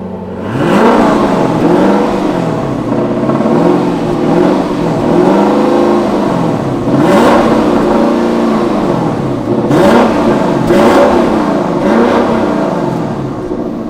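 Lexus LC500's naturally aspirated 5.0-litre V8 being blipped from idle, again and again. The exhaust note climbs and falls about once a second, then settles back toward idle near the end.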